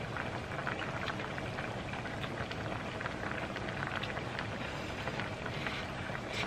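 Oden broth simmering in a pot on a tabletop burner: a steady patter of small bubbles popping and crackling.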